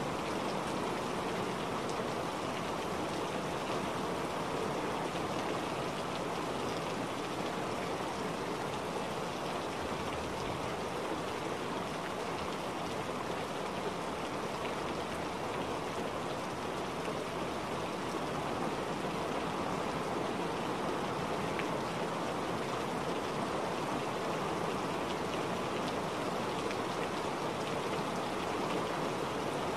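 Steady, even rain sound: a continuous rushing hiss with no single drops or breaks standing out.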